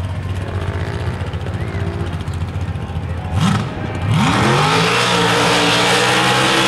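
Lifted pickup truck's engine running at the start line, with a quick rev just after three seconds, then at about four seconds it goes to full throttle for the launch, the engine note sweeping up and holding at high revs as the truck accelerates down the dirt track.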